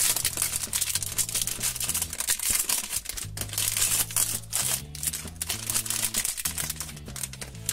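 Crinkly plastic blind-bag wrapper rustling and crackling as hands pull it open, over background music with a low bass line that steps from note to note.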